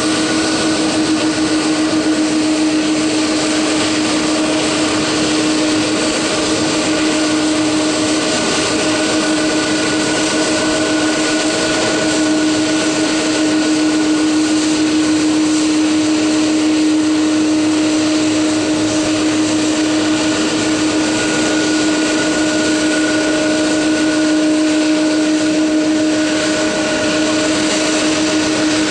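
Twin jet engines of a Boeing 777-200 airliner running at idle as it taxis: a steady rush of noise with a constant droning tone underneath.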